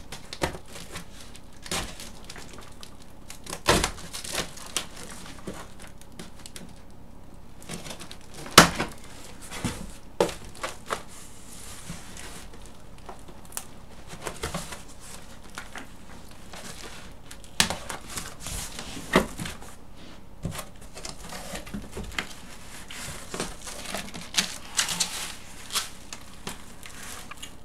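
Cardboard shipping box being handled and opened: scattered knocks, scrapes and crinkling of cardboard and packing, with one louder knock about eight seconds in.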